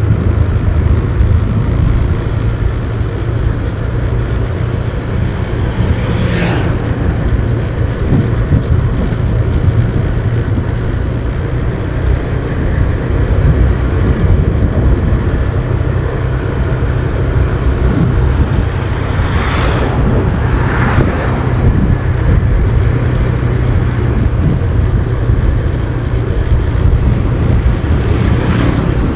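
Motorbike riding along an open road: steady low rumble of the engine and rushing wind, with brief louder swells about 6 s and 20 s in.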